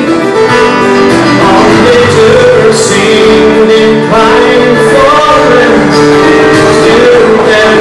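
Live folk band playing: fiddle, guitars and keyboard, steady and loud.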